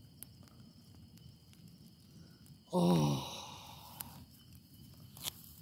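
Paper and cardboard bonfire crackling faintly, with a few sharp pops near the end. About three seconds in, a person lets out a loud sigh that falls in pitch.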